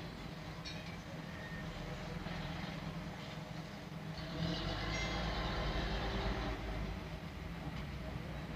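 Steady low background rumble with hiss, growing louder for about two seconds midway.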